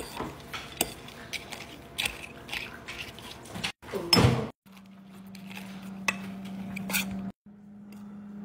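Spoon stirring a bowl of dry kibble mixed with raw egg, the kibble clicking and scraping in short strokes, with one louder knock about four seconds in. A steady low hum comes in around the middle and carries on under the stirring.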